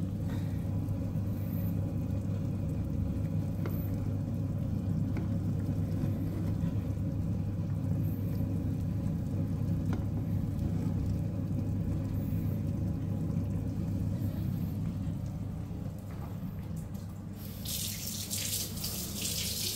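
A pot of fish soup at a rolling boil on an induction hob, bubbling with a steady low rumble. Near the end a hiss lasting about two seconds.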